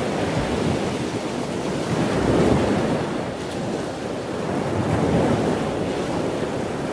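Rushing noise of wind and sea waves, swelling and easing gently every few seconds.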